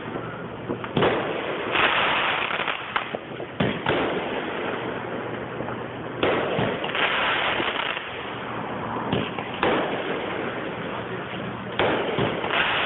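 Fireworks going off nearby: a run of sharp bangs, one every second or two, with a few of them followed by a spell of dense crackling.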